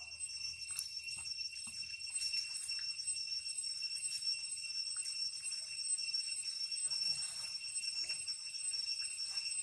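A chorus of insects droning steadily at several high pitches with a faint pulsing beat, with a few faint clicks over it.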